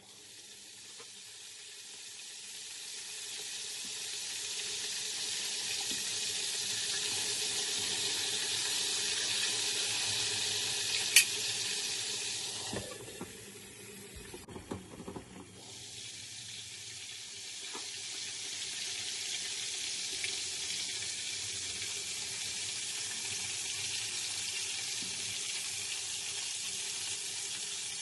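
Battered salt cod frying in hot oil under the stainless-steel lid of a frying pan: a steady sizzling hiss that builds over the first few seconds. About eleven seconds in there is a sharp click, followed by a short quieter spell with a few light knocks, and then the steady sizzle returns.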